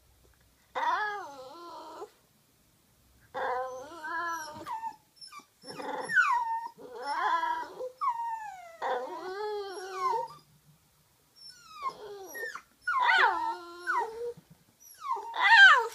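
Toy Poodle vocalizing in a string of about eight drawn-out whines that bend up and down in pitch, the last one the loudest. It is an insistent demand to play fetch.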